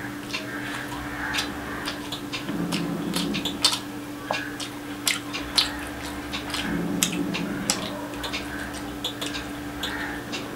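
A person chewing a mouthful of fried rice and egg curry close to the microphone, with frequent wet mouth clicks and smacks. A steady low hum runs underneath.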